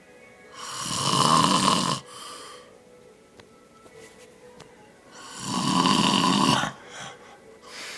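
A man snoring loudly: two long snores about four seconds apart, each followed by a brief softer sound, with a third snore beginning near the end.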